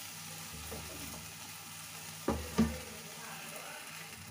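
Marinated chicken legs sizzling steadily on a wire grill rack over a low gas flame as the masala chars. Two short knocks come a little past halfway.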